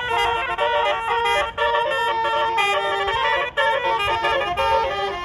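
A bus's basuri telolet horn playing a quick melody of steady notes that jump from pitch to pitch, breaking off briefly twice.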